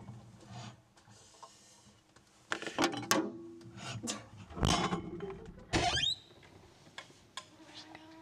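Someone rummaging in a refrigerator and lifting out a glass jar: three short clusters of knocks and rattles, about a second or more apart, as jars and bottles are shifted on the shelves.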